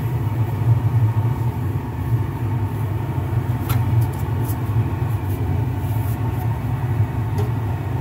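Carrier gas furnace running on LP with its burners lit and the burner cover off: a steady low rumble of the burner flames and draft-inducer motor, firing on a call for auxiliary heat.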